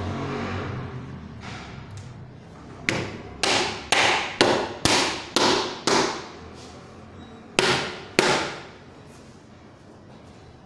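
Sharp knocks on a laminated wooden bed panel during assembly: about nine blows, seven in a row about half a second apart, then two more after a short pause.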